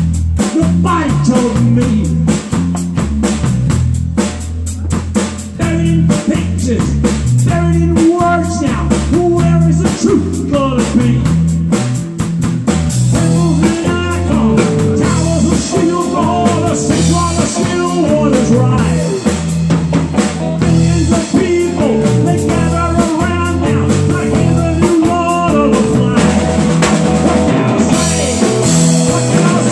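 Live rock band playing loud: electric guitar, electric bass and a drum kit with steady cymbal hits, with a man singing over them.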